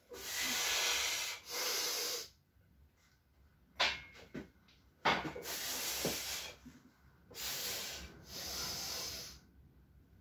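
Forceful hissing breaths of a weightlifter bracing under a heavy barbell for a squat: five loud breaths of about a second each, with a short sharp knock at about four seconds.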